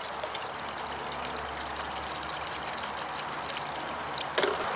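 Steady trickle of water from a small garden pond, with light clicks from a spoon in a jar. A plastic zip-top bag rustles louder near the end.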